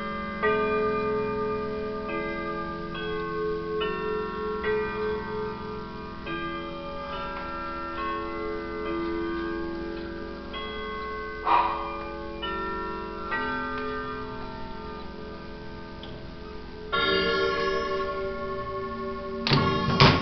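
Grandfather clock with a German-made movement chiming a melody on its rod chimes rather than tubular bells, struck notes ringing on and overlapping one after another. The chime was set off by advancing the minute hand to the hour. There is a knock a little past halfway and a louder knock near the end.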